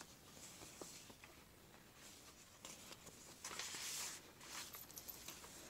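Faint rustling and sliding of paper as a card is pulled from a paper journal pocket and tucked back in, with a few light taps. A longer, slightly louder hiss of paper sliding comes a little after three seconds.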